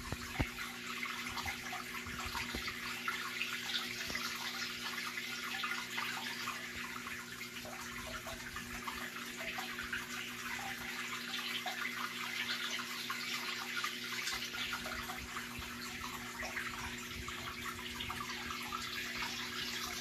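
Aquarium filter water trickling and splashing steadily into a freshwater tank, over a steady low hum from the filter and pump motors.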